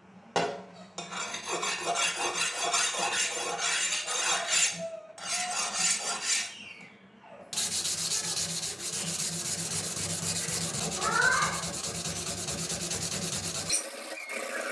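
Hand-held abrasive rubbed rapidly back and forth along a steel katana blade: a continuous scraping rasp of quick strokes, with a short pause about seven seconds in.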